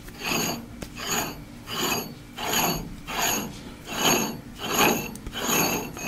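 Large steel nut being spun by hand on the freshly cut threads of a hydraulic cylinder: metal scraping with a high ring, in about eight even strokes, one every three-quarters of a second or so.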